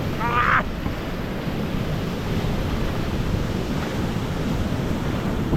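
Steady rushing of waterfall water, an even noise with some wind buffeting the microphone; a brief voice calls out about half a second in.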